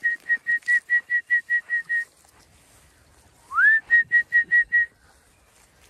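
A person whistling to call in sheep. A first call is already running as a fast string of short notes at one high pitch, about five a second, and stops about two seconds in. About a second and a half later a second call starts with a rising note and runs into six more short notes at the same pitch.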